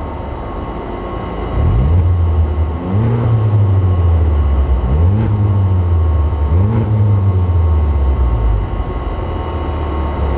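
Honda Civic Type R FK8's turbocharged four-cylinder running through an Armytrix aftermarket exhaust, revved up about four times, the pitch rising and falling with each blip over a steady low drone.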